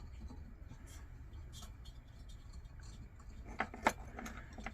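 Light handling noises: a few faint taps, then two sharper clicks close together about three and a half seconds in, over a low steady hum.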